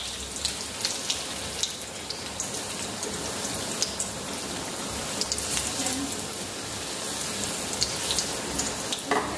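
Besan-battered ajwain leaf bhajis deep-frying in hot oil in an iron kadhai: a steady sizzle with scattered crackles and pops, briefly louder about nine seconds in as another battered leaf goes into the oil.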